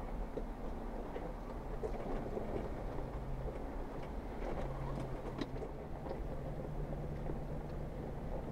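Jeep Wrangler Rubicon engine running steadily at low speed while crawling a rocky trail, with scattered light knocks and rattles as the tyres and body go over the rocks.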